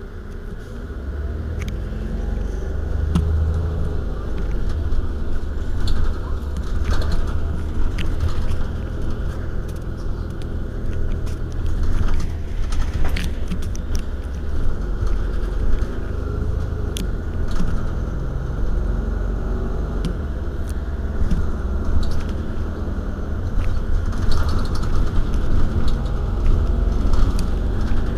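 Iveco Urbanway 12 city bus running while stopped: a steady low engine rumble that grows louder over the first few seconds, with scattered light clicks.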